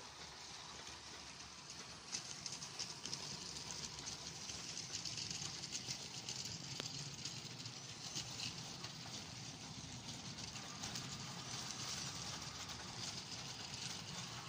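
Model trains running on a OO gauge layout: a steady whirr of wheels and motors with a fine patter of clicks over the rail joints. It grows louder about two seconds in.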